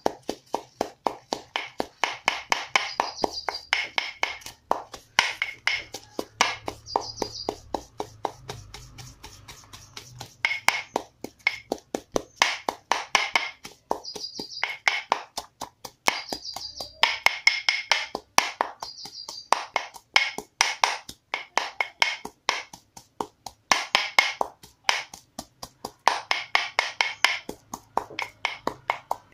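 Guduchi leaves being pounded into a paste: a steady run of sharp strikes, about three a second.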